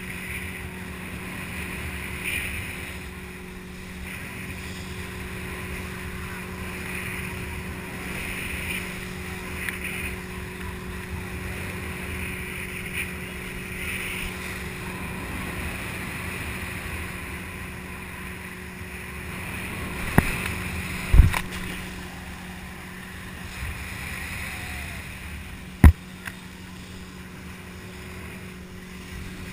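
Motorboat engine running steadily under wind and water rush. A few sharp knocks come about two-thirds of the way in, and one loud knock follows a few seconds later.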